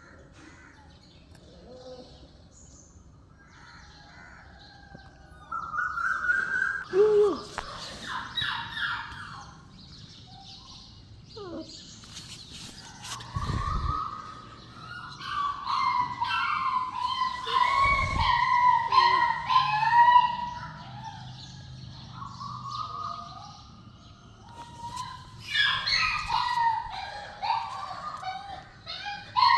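Puppies whining and squealing in high, wavering cries that come and go, with a couple of low thumps.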